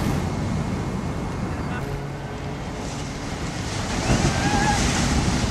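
Ocean surf breaking on a rocky shore: a steady wash of waves that swells louder about four seconds in, with wind buffeting the microphone.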